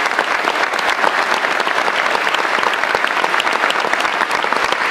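Audience applauding: a dense patter of many hands clapping at once.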